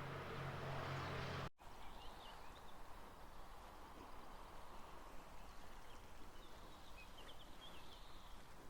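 Faint outdoor ambience with distant birds chirping in short high calls, twice in small clusters. Near the start a steady low hum with hiss cuts off suddenly.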